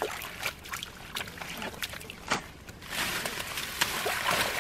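Wet mud and water squelching and sloshing as bare hands scoop out handfuls of muck and plant roots from a shallow pool, with scattered small splashes and clicks. It gets louder about three seconds in.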